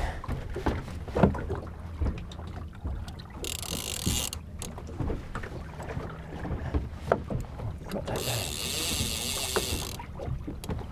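Water lapping against a small boat's hull and wind on the microphone, with scattered small knocks of rods and gear. Two short bursts of high hiss come about three and a half and eight seconds in.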